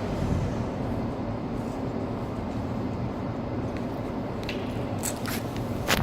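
Audi A8 4.2 quattro V8 engine running steadily at low revs. A few light clicks come near the end, then a sharp knock.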